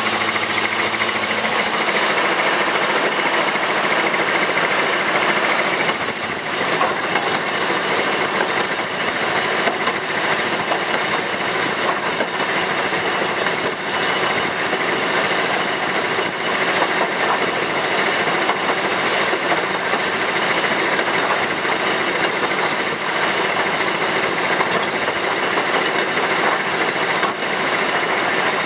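Narrow-gauge diesel locomotive running steadily down the line, its engine and the wheels on the rails heard from the open deck.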